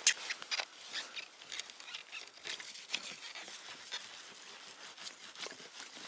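Irregular crunching and clicking on snowy ice, as of footsteps and handling around an ice-fishing hole, with a sharp click right at the start.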